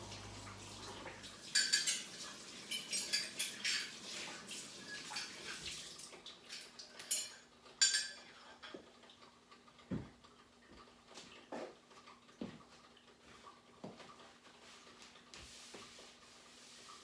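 Dishes and cutlery clinking and clattering at a kitchen sink as they are washed and handled. The clatter is busiest in the first half, then thins to a few duller knocks.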